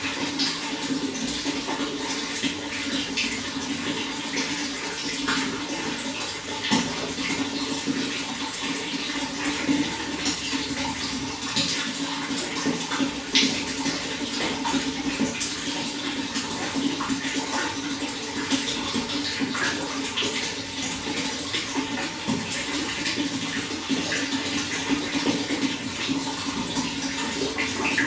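Running water flowing steadily: a continuous rush with many small splashes and drips scattered through it.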